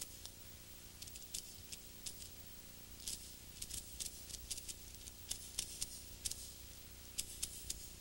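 Faint, irregular small clicks and ticks, roughly two a second, over a low steady hum.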